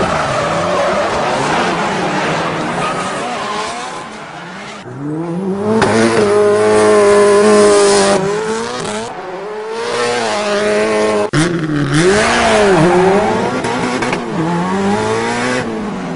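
Car drifting: tires squealing and skidding while the engine revs up, holds high and falls back in repeated swells. There is a brief cut in the sound about eleven seconds in.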